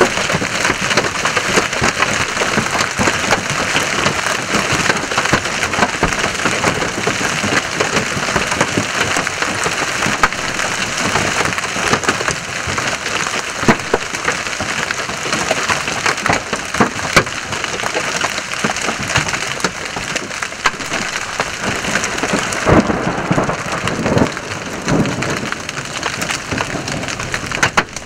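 Large hailstones and heavy rain pelting cars and pavement: a loud, dense clatter of countless small impacts. Near the end the hiss thins and a few heavier knocks stand out.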